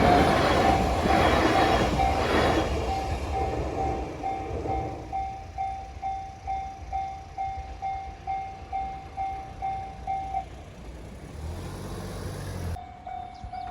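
Japanese level-crossing bell ringing its steady "kan-kan" at about two strokes a second while a train runs over the crossing, its wheels clattering over the rail joints for the first few seconds. The bell stops about ten seconds in, and near the end another crossing bell starts up.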